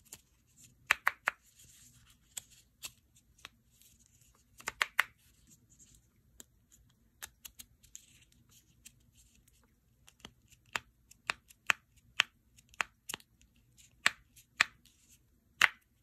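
Leather fidget slider worked back and forth in the hand, its top layer snapping into place with sharp clicks and faint leather rubbing between them. The clicks come irregularly, sometimes in quick pairs, then settle into a run of about two a second in the last few seconds.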